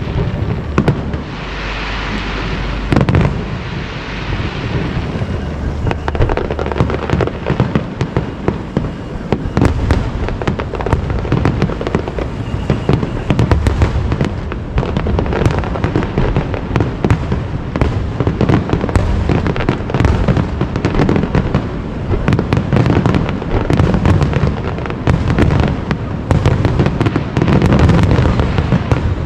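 Aerial fireworks display in a dense barrage: shell bursts bang one after another, often several a second, without a break.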